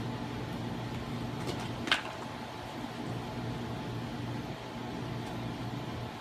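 Steady low background hum, like a fan or appliance running, with one sharp click about two seconds in.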